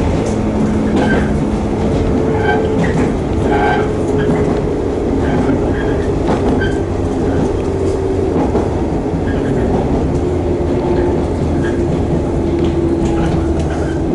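Electric train running on the rails, heard from inside the car: a steady rumble with occasional wheel clicks and a motor whine that falls slowly in pitch as the train slows on the approach to a station.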